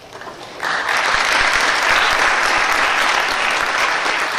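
Audience applauding, breaking out suddenly about a second in and staying strong.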